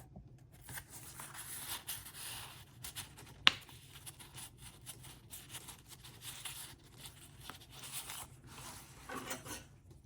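Paper and cardstock being handled: soft, irregular rustling and sliding as pieces are placed into the folio's pockets, with one sharp tap or click about three and a half seconds in.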